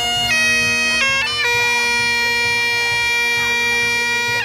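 Bagpipe playing: a steady drone under a chanter melody of held notes, broken about a second in by a quick run of grace notes.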